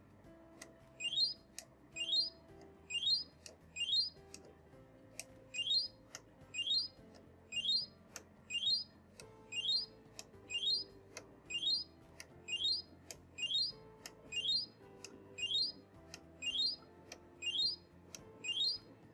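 Front-panel BEEP STOP button of a SANUPS E11B uninterruptible power supply pressed over and over, about once a second. Each press gives a sharp click and a short rising electronic chirp. The presses step through a button-count sequence that resets the UPS's battery information.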